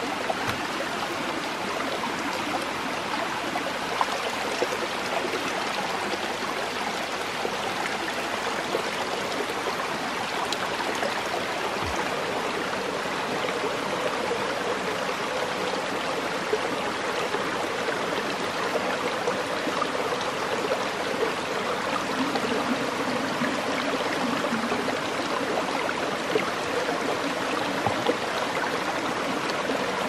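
Shallow rocky stream running steadily over stones, an even rush of flowing water.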